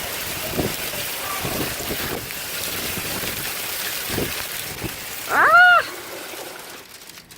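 Hail falling steadily, a dense hiss mixed with wind. About five and a half seconds in, a short high call rises and falls in pitch, louder than the hail.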